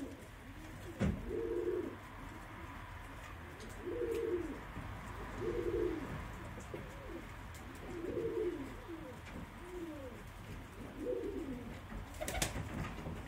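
Domestic pigeon cooing, a series of short low coos repeated every second or two. A sharp knock sounds about a second in and another near the end.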